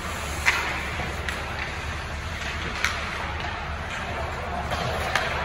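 Ice hockey play in an arena: a steady noisy rink background with four sharp clacks of sticks and puck, the loudest about half a second in and near three seconds.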